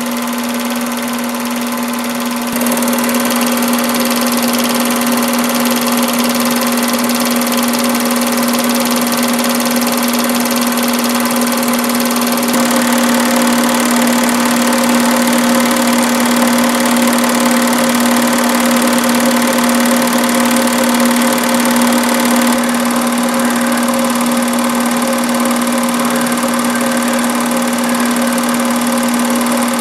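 Film projector running: a steady motor hum with the mechanism's fast, even clatter over it. The sound shifts slightly in level and texture about two and a half seconds in and again around twelve and twenty-two seconds.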